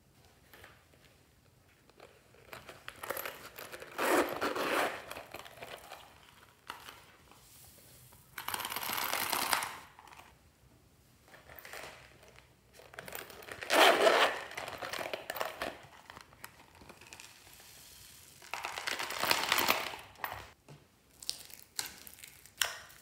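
Small foam beads poured from plastic containers onto slime in a glass tray, coming as four short noisy rushes a few seconds apart.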